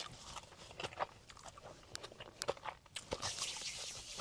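Close-up chewing and biting on food, with small wet clicks and crunches scattered through.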